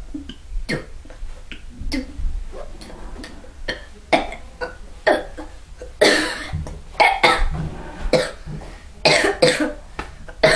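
A person coughing over and over in short, sharp bursts, several in quick succession, with the loudest run past the middle and another near the end.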